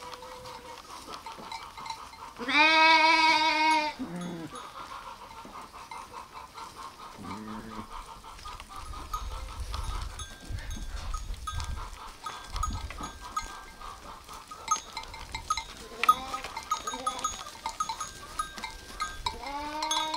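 Sheep and lambs bleating: one long, loud bleat about two to four seconds in, then shorter, fainter bleats scattered through, and another starting near the end.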